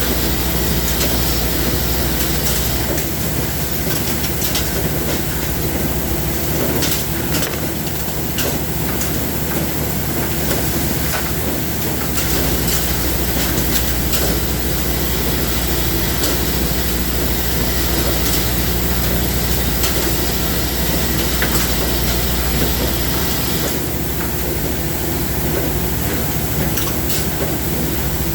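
Machinery running steadily, with scattered clicks and a low hum that cuts out and back in a few times.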